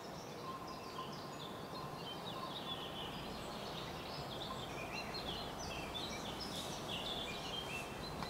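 Songbirds chirping and trilling, many short high notes, over a steady background of outdoor noise.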